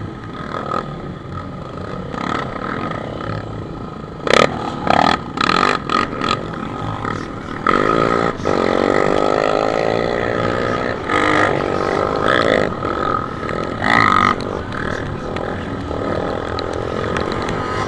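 Enduro motorcycle engine running and revving on board as the bike rides, heard from close to the bike, with the pitch climbing as it accelerates around the middle and a few sudden loud noises mixed in.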